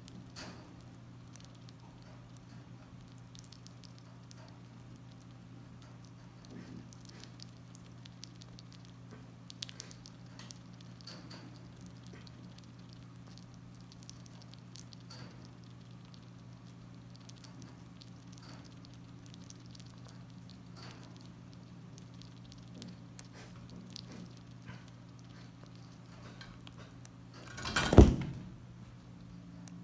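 A young squirrel chewing and nibbling a banana: faint, small wet clicks and smacks scattered throughout, over a steady low hum. About two seconds before the end there is a single loud knock.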